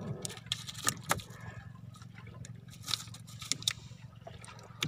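Scattered sharp splashes and clicks as a string of fish on a multi-hook jigging line is hauled up out of the water. A steady low machine hum runs underneath.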